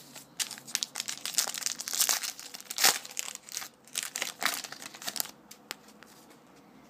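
Wrapper of a 2012 Topps Magic football card pack crinkling and tearing as it is opened by hand: a dense run of crackles lasting about five seconds, loudest in the middle, then stopping.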